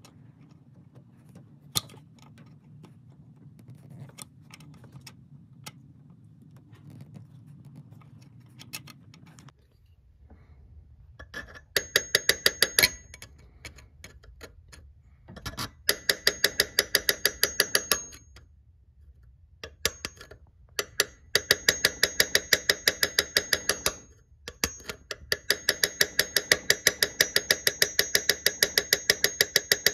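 Rapid, light metal-on-metal taps on a steel punch set against the stub of a broken alternator tensioner bolt, tapping it round to back it out of its thread. The taps come in runs of several a second with a slight ring, broken by short pauses, after a stretch of scattered faint clicks.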